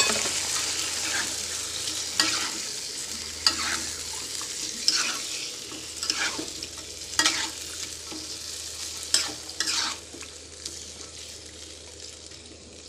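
Raw chicken wings sizzling in hot oil in a wok, with a spatula scraping and knocking against the pan about once a second as they are stirred. The sizzle is loudest at the start and dies down steadily as the cold meat cools the oil.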